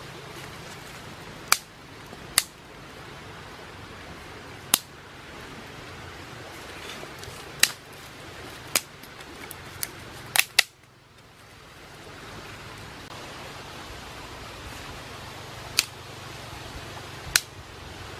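Small fire of dry grass and bamboo crackling, with about ten sharp pops every second or two over a steady hiss.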